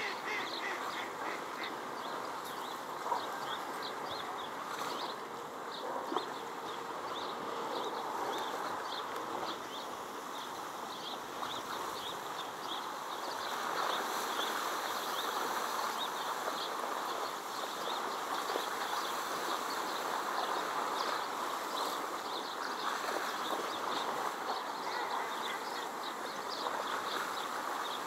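Ducks calling: many short, high calls repeated throughout, over a steady background wash.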